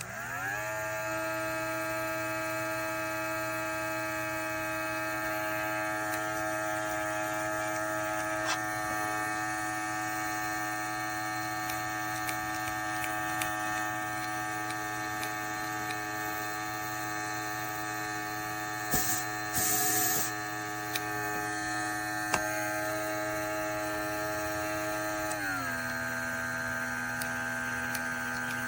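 Small electric airbrush compressor motor whirring: it spins up in pitch in the first second, then runs steadily. A short burst of hiss comes about two-thirds of the way through, and the motor's pitch drops near the end.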